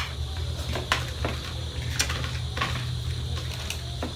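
Spoon and cutlery clinking against plates as people eat, about half a dozen separate sharp clinks spread through, over a steady low hum.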